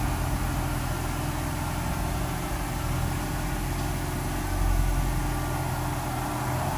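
Mercedes CL63 AMG V8 idling steadily through an exhaust with its resonators deleted, swelling slightly about five seconds in.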